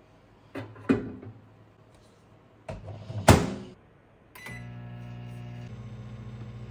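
A bowl is set down inside a microwave oven with a couple of clunks, and the microwave door is shut with a loud bang about three seconds in. A keypad press follows, and the microwave starts running with a steady hum as it heats the bowl.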